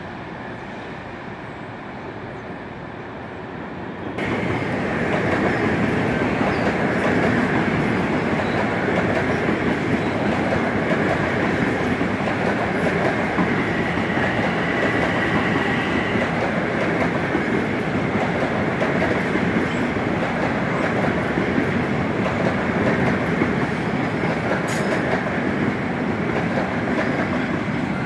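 Long Island Rail Road electric commuter train running past on the tracks, wheels on rail, growing suddenly louder about four seconds in as the cars come alongside and staying loud as the long train goes by. A faint high whine sounds for a few seconds partway through.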